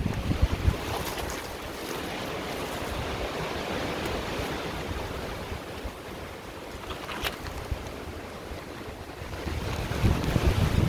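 Branches and leaves brushing and rustling as someone pushes on foot through dense scrub, over a steady rush of wind on the microphone. The movement noise is heavier at the start and again near the end, with one sharp click about seven seconds in.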